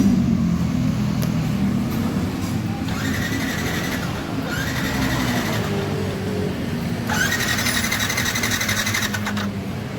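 Yamaha NMAX scooter engine being cranked on its electric starter without firing, with two whining cranking bursts, one about three seconds in and a longer one about seven seconds in. It is a no-start that the owner traces to water in the fuel tank.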